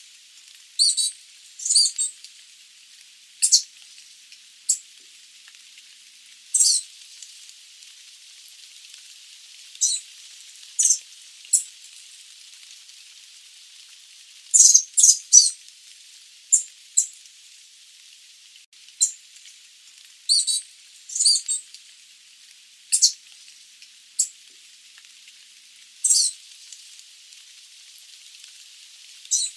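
Sooty babbler calling: short, high-pitched notes at irregular intervals, some in quick runs of two or three, over a steady hiss.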